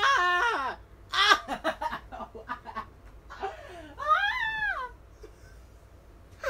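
High-pitched excited laughter and squeals from a person, coming in bursts and going quieter near the end.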